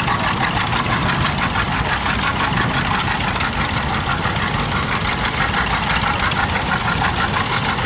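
An engine running steadily at idle, with a fast, even beat.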